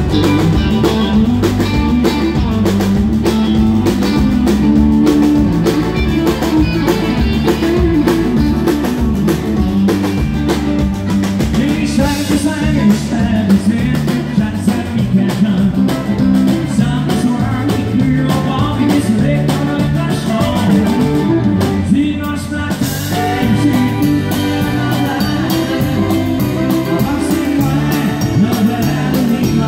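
Live country band playing: electric guitar, pedal steel guitar, electric bass and drum kit, with a steady beat.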